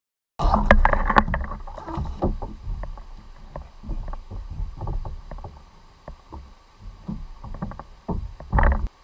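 Irregular hollow knocks, bumps and clatter of gear being handled against plastic fishing kayak hulls, starting about half a second in. A louder bump comes near the end.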